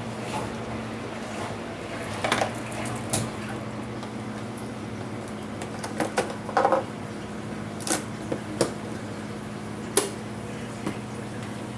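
Scattered light clicks and knocks of plastic and metal laptop parts being handled during disassembly, over a steady low hum.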